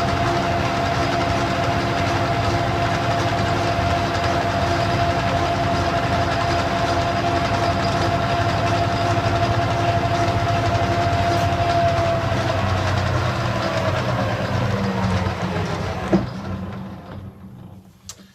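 Metal lathe running a facing cut with a carbide-insert facing tool at a slow feed, a steady machine whine with a clear tone in it. About twelve seconds in the whine starts to fall in pitch as the lathe slows, a click comes near sixteen seconds, and the machine runs down to quiet just before the end.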